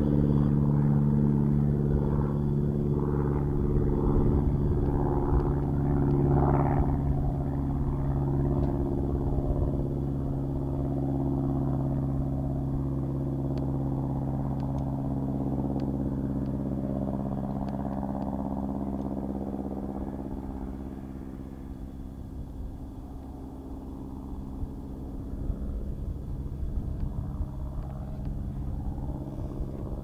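A 1942 de Havilland Tiger Moth's four-cylinder Gipsy Major engine running steadily as the biplane flies past. The engine sound dips about two-thirds of the way through, then grows louder again near the end.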